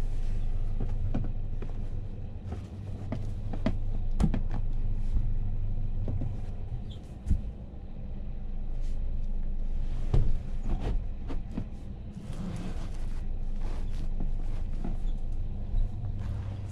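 Steady low hum and rumble inside a railway couchette carriage, with a series of sharp knocks and clatters as the compartment's fold-down table and armrests are handled and the lower berth is pulled out into a bed.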